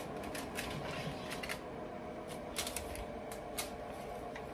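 Freshly baked homemade croutons being handled, a string of light, irregular clicks and rattles, over the steady background noise of a space heater.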